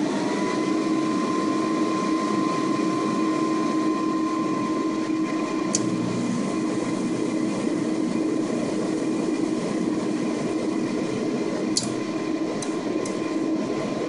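Remington 70,000 BTU forced-air kerosene heater's motor coming up to speed and then running steadily, turning the fan and the pump, with a steady whine and a few faint clicks. The heater does not light: no spark reaches the plug, which the owner puts down to a failed igniter module.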